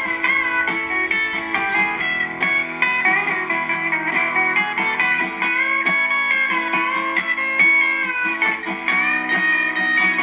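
Background music: a guitar-led passage of plucked notes with no singing.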